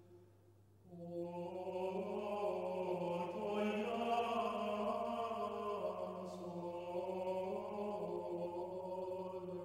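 Choral music: a choir singing slow, sustained chords. They enter about a second in, after a brief near-silent pause.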